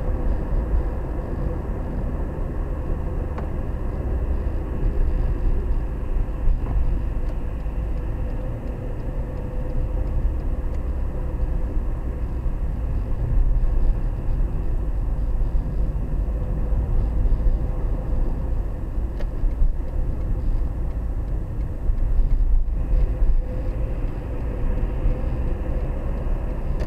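Car driving at around 20 to 25 mph, heard from inside the cabin: a steady low rumble of engine and tyres on the road, with a faint engine hum that drifts slightly in pitch.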